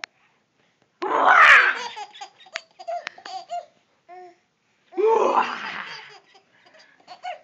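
Baby laughing: two longer, loud bursts of laughter, about a second in and about five seconds in, with short high giggles between them and near the end.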